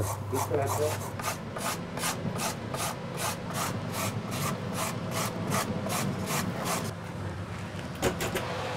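Vegetables being grated on a hand-held metal box grater: a steady run of rasping strokes, about four a second, that stops about seven seconds in. A few brief knocks follow near the end.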